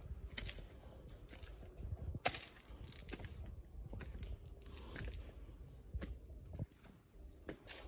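Footsteps crunching on gritty stone steps and paving strewn with dry leaves and small stones: irregular short crunches and clicks, a few of them sharper.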